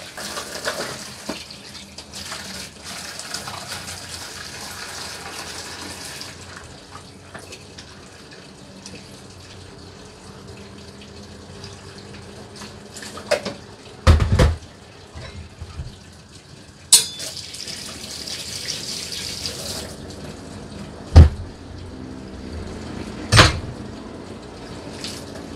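Kitchen tap running into a sink in two spells, with several sharp knocks of kitchenware in between.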